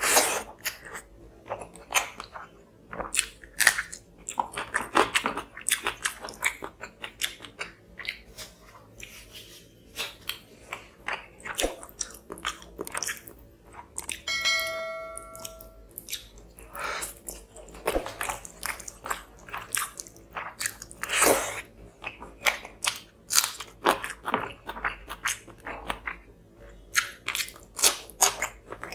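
Close-miked eating of fish curry and rice: steady chewing with frequent crisp crunches and bites. About halfway through, a short bell-like notification chime rings for about a second and a half.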